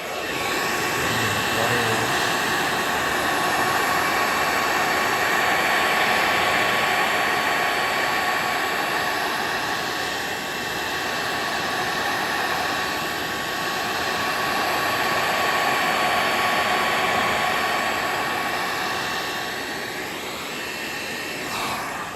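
Hot-air blower running steadily: a rushing of air with a constant motor whine on top, heating the tablet's glued back panel to soften the adhesive. It cuts off at the end.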